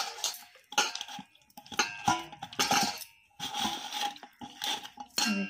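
A hand mashing and squeezing wet mahua flowers in a stainless steel bowl to press out their juice: irregular wet squishes with clinks and a faint ring from the steel bowl.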